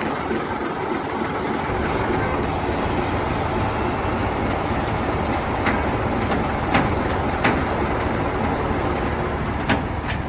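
Train running on rails: a steady rumble with a few sharp clicks in the second half.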